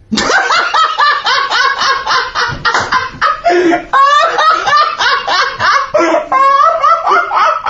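A man laughing hard in a long, high-pitched fit of quick repeated ha-ha sounds with no break.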